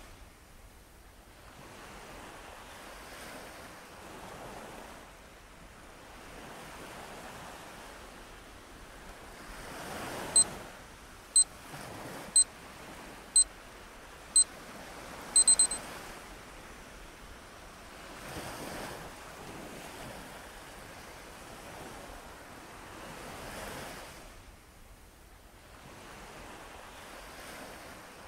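Ocean waves washing in and out in slow swells on a background ambience track. About ten seconds in, a countdown timer beeps once a second five times and then gives a quick run of beeps as the exercise timer ends.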